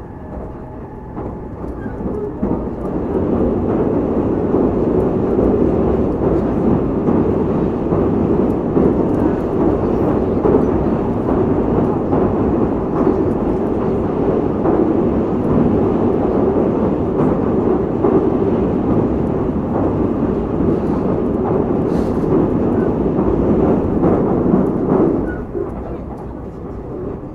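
Tobu limited express Ryomo train heard from inside the carriage, running over a steel truss bridge. The wheel and track noise is a deep, steady rumble that grows louder about three seconds in and holds. It drops back near the end as the train comes off the bridge.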